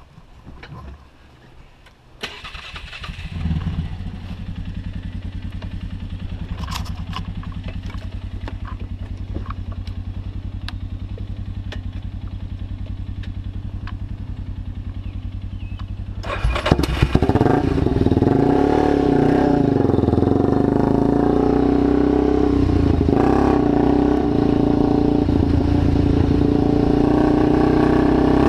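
A rebuilt ATV engine starting about two seconds in and settling to a steady run. About sixteen seconds in it suddenly gets much louder and higher as it is throttled up, then keeps running at higher revs with the pitch rising and falling.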